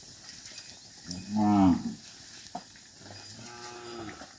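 Cattle mooing: one loud moo about a second in, then a second, quieter and longer moo near the end.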